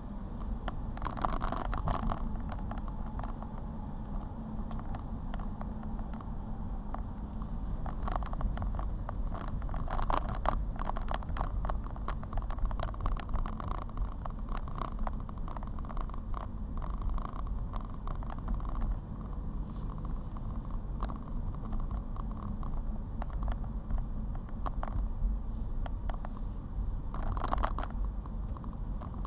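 Car driving on a wet road in rain, heard from inside: a steady low road rumble with tyre-spray hiss that swells now and then, and many scattered small ticks.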